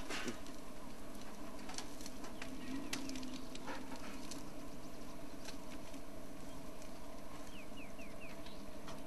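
Outdoor bush ambience: a steady low hum with scattered clicks and crackles, and a bird giving four quick falling chirps about seven and a half seconds in.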